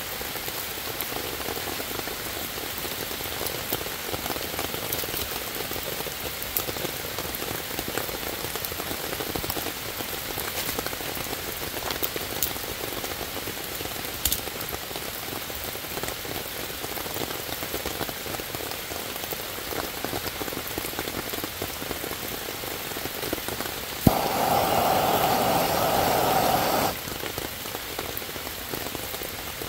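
Steady rain falling on leaves and wet ground, with scattered drip ticks. Near the end, a sharp click is followed by a louder steady hiss lasting almost three seconds, which then cuts off suddenly.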